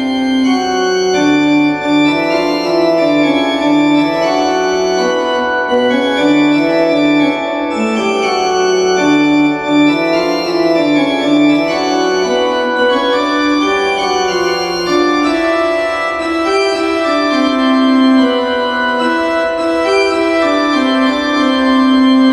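Electronic keyboard set to an organ voice, playing a melody over sustained chords and a moving bass line.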